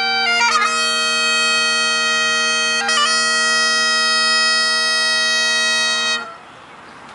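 Great Highland bagpipe playing: a few quick grace notes on the chanter, then one long held note over the steady drones, and the pipes stop abruptly about six seconds in.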